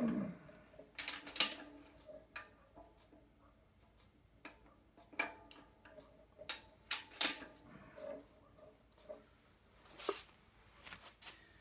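Scattered metallic clinks and knocks from a Jeep Cherokee driveshaft and its new universal joint being handled and turned in a hydraulic shop press, while the U-joint bearing caps are pressed into the yoke. The knocks are irregular, about a dozen of them, and the sharpest comes about a second and a half in.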